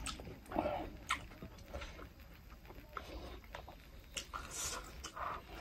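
Close-miked mouth sounds of people chewing goat meat and rice: soft wet chewing, lip-smacks and small mouth clicks, scattered and irregular.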